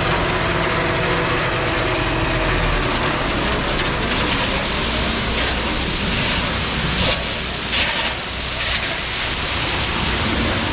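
Diesel dump truck unloading crushed limestone: the engine runs under a heavy rushing, rattling noise of stone pouring out. A few sharper hissy surges come in the middle.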